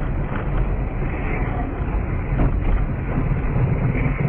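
Steady driving noise of a car on the move, recorded by a dash cam inside it: a deep engine and tyre rumble with road noise over it.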